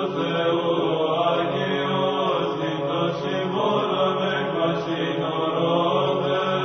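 Church chant sung in slow, held notes over a steady low drone.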